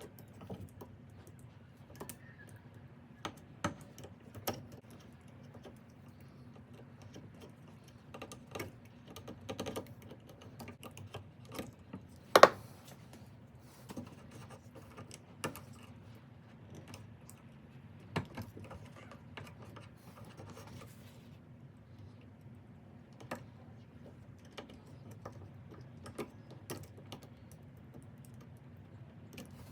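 Irregular light clicks and taps of small hard objects being handled, with one sharper knock about twelve seconds in, over a faint steady hum.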